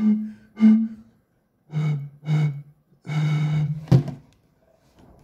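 Breathy, hooting notes blown across the mouths of plastic soda bottles partly filled with water, played as a simple tune. Two higher notes are followed by three lower ones, the last held longest. A sharp knock comes about four seconds in.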